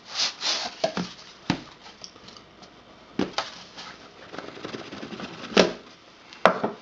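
Cardboard phone packaging being handled: a scraping rustle as the outer sleeve slides off the box, then a few sharp taps and knocks as the stiff black inner box is handled and its lid lifted, the loudest two near the end.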